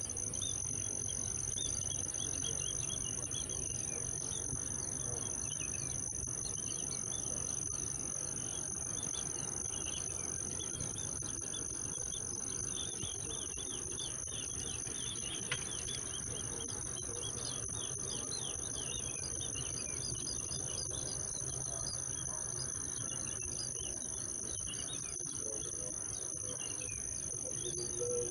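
Crickets and other insects trilling steadily in a high, continuous chorus, with many short repeated chirps above a faint, steady low hum.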